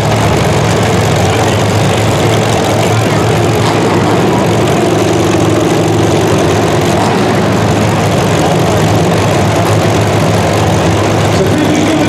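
Demolition derby cars' engines running steadily: a loud, continuous low drone.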